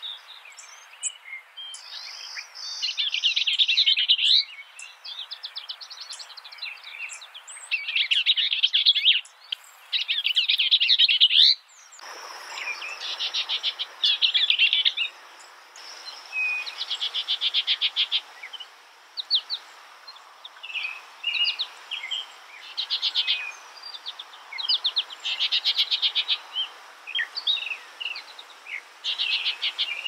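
Songbird singing in short phrases of rapid trilled notes and chirps. About twelve seconds in, the recording cuts to another stretch of song with a steady background hiss.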